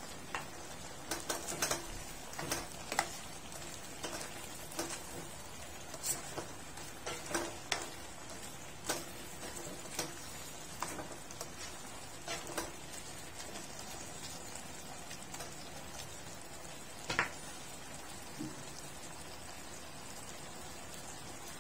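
Shrimp simmering in sauce in a frying pan: a steady low sizzle with irregular pops and clicks, thickest in the first half, and one louder click about 17 seconds in.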